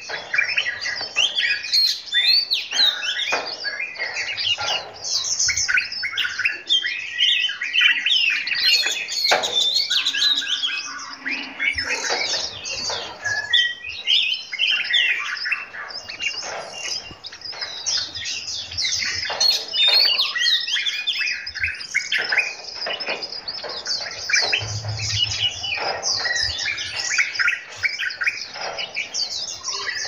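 A mixed group of caged songbirds chirping and singing at once: a dense, unbroken chorus of overlapping high chirps and whistled phrases.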